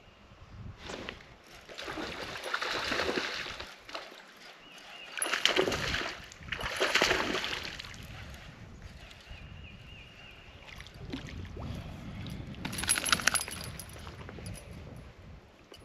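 Water splashing in several bursts from a hooked bass fighting at the surface on rod and reel, the last burst near the end as the fish comes out of the water.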